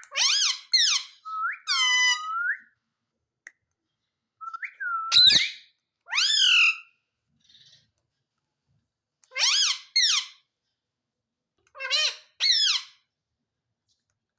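Indian ringneck parrot calling: short, harsh, high-pitched squawks that come in pairs, mixed with a few gliding whistled notes, in several bursts with pauses of a second or more between them.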